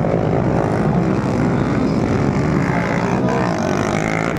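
Small-wheel motocross dirt bikes racing, their engines buzzing and revving together, with the pitch climbing near the end.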